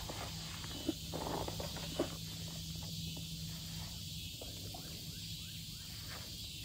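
Faint small knocks and rustles of someone moving about in a small fishing boat, over a steady low hum that stops about two-thirds of the way through and an even high hiss.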